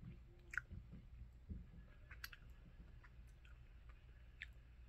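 Faint chewing of a jelly bean, with a few soft, scattered mouth clicks.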